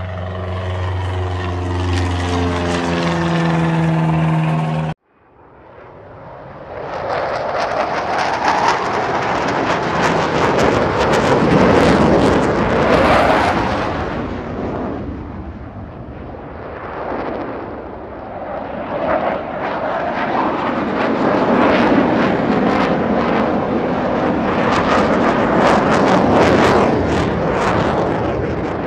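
Model aircraft engines running. A steady hum for about five seconds cuts off suddenly, then a louder, rougher propeller-engine sound builds up and rises and falls several times.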